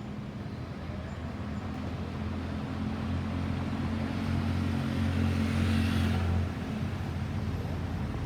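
A road vehicle passing close by with no siren: a steady low engine hum and tyre noise build to a peak about five to six seconds in, then the hum drops off suddenly.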